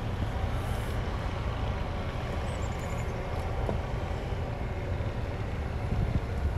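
Steady low rumble of a motor vehicle, engine and road noise with no distinct events.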